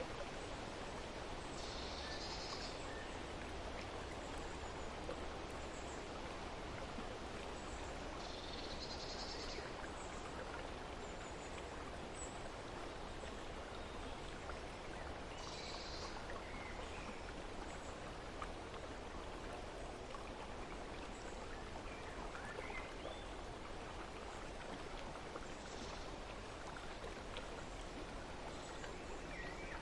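Steady rush of flowing water, with birds giving short high calls every several seconds.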